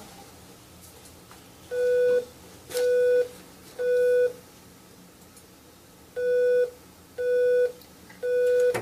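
Two sets of three short electronic test beeps, each about half a second long at one steady mid pitch, evenly spaced. These are stimulus tones played during a cochlear implant activation to test the child's response.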